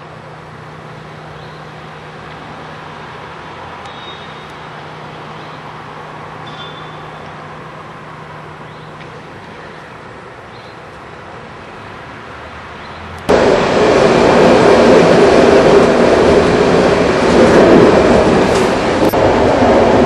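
Water gushing and splashing. It is steady and fairly quiet at first, then about thirteen seconds in it jumps abruptly to a much louder, dense rushing.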